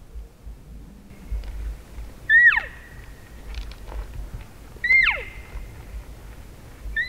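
Cow-elk mew calls, three in a row about two and a half seconds apart, each a short high nasal note that bends up slightly, then slides steeply down in pitch.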